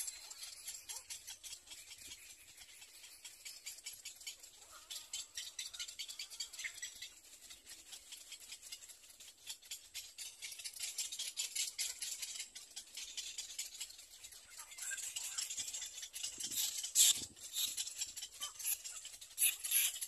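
Little egret nestlings giving a rapid, dry clicking chatter, swelling louder in short bursts near the end: the begging calls of chicks at the nest.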